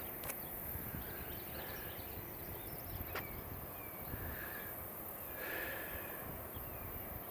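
Birds calling faintly: several short falling chirps and a few brief whistled notes, over a steady low rumble of wind on the microphone.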